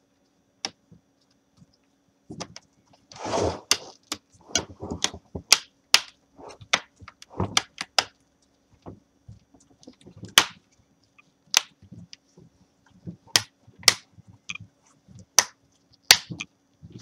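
Plastic LCD bezel of a Dell Inspiron N4010 being pressed back onto the screen lid, its clips snapping into place: a long run of sharp, irregular clicks, with some handling rustle about three seconds in.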